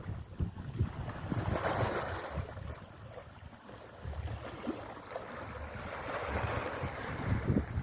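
Sea waves washing in, swelling twice, with wind buffeting the microphone.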